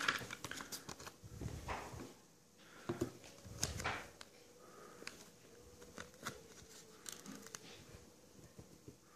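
Thin vinyl phone skin and its paper backing sheet rustling and crackling as they are handled and peeled apart, in scattered short bursts that are louder in the first four seconds and fainter after.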